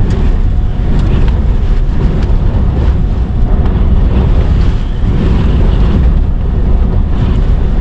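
Hurricane-force wind from the edge of a major hurricane's eyewall, blowing hard and steadily against the vehicle and buffeting the microphone, with a deep, rumbling low end.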